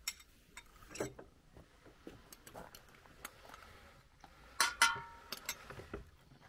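Irregular light clicks and taps, with a louder pair of clicks a little over four and a half seconds in, the second ringing briefly like a clink.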